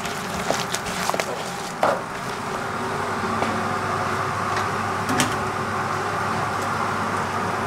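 Onion bhaji batter being hand-mixed: sliced onions worked through gram-flour batter in a plastic bowl, with crackly clicks and knocks in the first two seconds. After that comes a steady kitchen background noise with one more knock.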